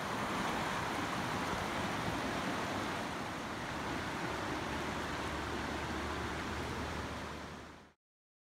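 Steady rushing of a flowing river, fading out quickly near the end.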